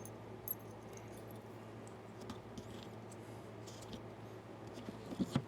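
Faint small metal clicks and ticks from a compartment-door lock being handled as its keeper nut is taken off, a few scattered clicks with a cluster near the end, over a low steady hum.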